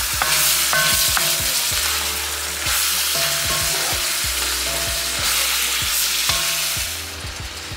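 Chicken pieces and onions sizzling in a hot wok while a spatula stirs and scrapes them, with scattered knocks of the spatula against the pan. The sizzling drops off near the end.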